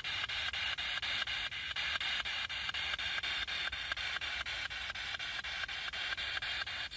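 Spirit box (ITC research device) sweeping through FM radio stations: a steady hiss of radio static chopped by rapid, evenly spaced clicks, about six or seven a second, as it jumps from station to station.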